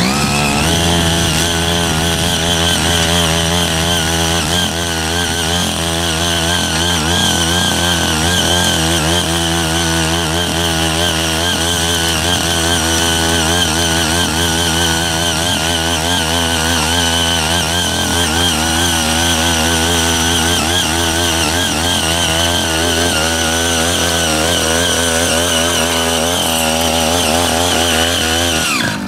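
CY80 power tiller's 5 HP engine running steadily under load, its pitch wavering slightly, while six rotary tilling blades churn weeds and soil.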